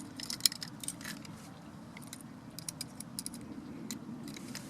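Light clicks and taps from handling a plastic car power window switch and multimeter test leads, scattered irregularly, the sharpest about half a second in.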